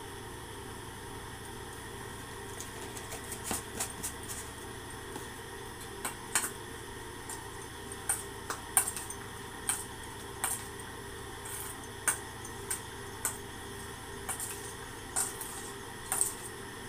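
Metal spoon clinking and scraping against a stainless steel bowl while stirring sweetcorn kernels, in irregular clinks that start a few seconds in, over a steady background hum.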